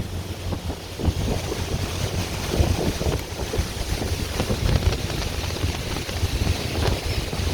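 Wind buffeting the microphone aboard a moving tour boat, in uneven gusts over a steady rushing noise.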